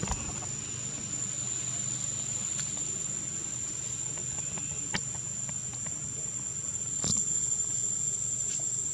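Steady, high-pitched drone of insects, one unbroken tone, with a few faint clicks about five and seven seconds in.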